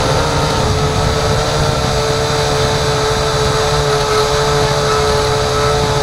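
Small drone's electric motors and propellers whining steadily as it flies, picked up by its onboard camera. The hum holds one steady pitch with overtones, dipping slightly just after the start, over a low rumble.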